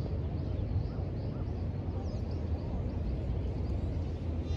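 City park ambience: a steady low rumble of distant city traffic, with faint short bird chirps scattered through it.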